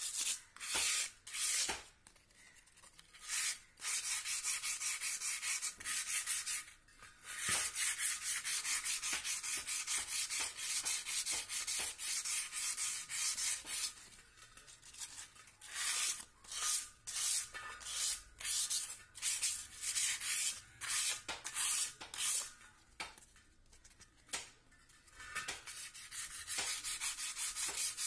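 Sandpaper rubbed back and forth by hand inside a rusted motorcycle spoke-wheel rim, scraping off rust. It comes in quick hissing strokes, in runs broken by short pauses.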